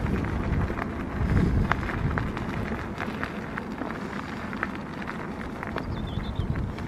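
Wind buffeting the microphone over the rumble of mountain bike tyres rolling along a gravelly lane, with scattered small irregular clicks and rattles.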